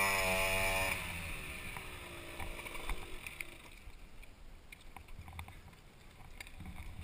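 A small dirt-bike engine running at a high, steady pitch, then dropping in pitch and fading out over about the next two seconds as the bike slows or moves away. Faint scattered clicks and knocks follow.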